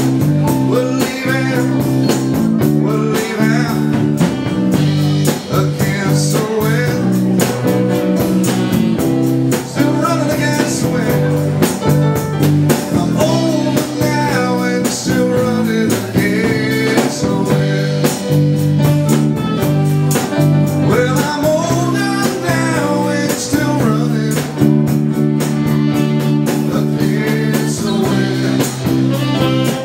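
Live band playing a blues-rock number, with electric guitar, bass and a steady drum beat.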